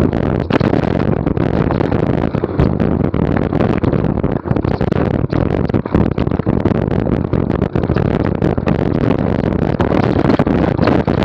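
Downhill mountain bike ride: a loud, continuous rush of wind on the microphone mixed with rattling and tyre noise on the trail, broken by many short knocks and dropouts.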